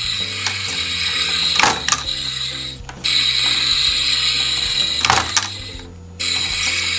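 Battery-powered toy frying pan's mechanism running with a steady mechanical whirring hiss, in runs of about three seconds that stop and restart twice. A few sharp plastic clicks from the toy spatula.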